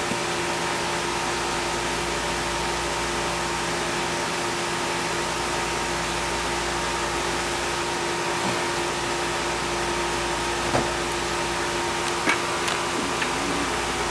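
A steady mechanical hum and whir, with a few light clicks in the last few seconds.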